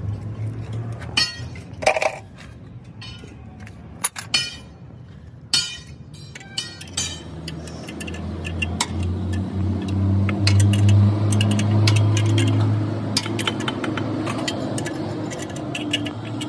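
Metal hand tools clinking and knocking against engine parts, sharp separate clicks through the first seven seconds. From about eight seconds in, a steady low mechanical hum runs underneath, loudest in the middle, with more light clinks over it.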